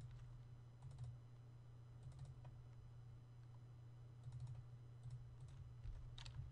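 Faint computer mouse clicks, several of them in quick pairs and triples, over a steady low electrical hum.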